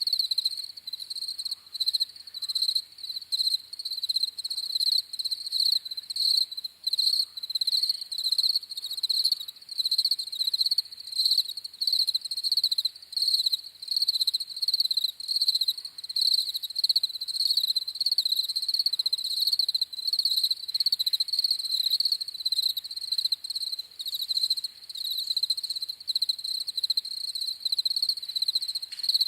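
Crickets chirping in rapid, continuous pulses with a high, steady pitch.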